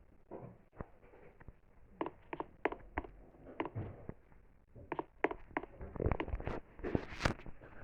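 A scattering of short taps and clicks, irregular and growing more frequent in the second half, over a low background murmur.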